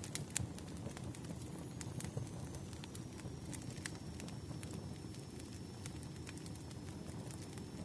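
Wood fire crackling: irregular sharp pops and snaps over a steady low rumble of burning logs, with a faint thin high tone through most of it.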